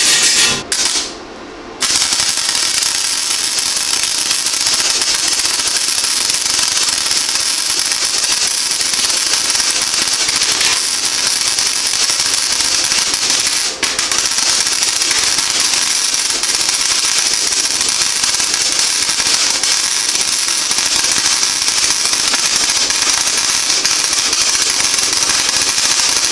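Flux-core arc welding bead on 22-gauge sheet steel with a Century flux-core wire-feed welder: the arc crackles and spatters loudly and continuously. A short first burst stops for about a second before the arc is struck again and held.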